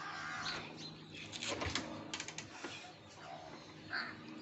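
A motorcycle's kick-start lever kicked, giving a few sharp clanks a second and a half to nearly three seconds in, with the engine not catching; the kick-starter is slipping.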